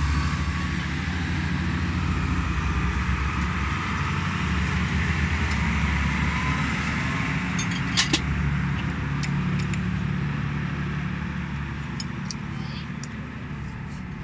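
Low, steady drone of an engine running, easing off slightly toward the end, with one short sharp click about eight seconds in.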